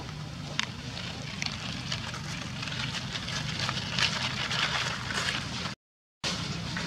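Dry fallen leaves crackling and rustling as a macaque walks over them, with scattered small clicks, over a steady low hum. The sound drops out briefly near the end.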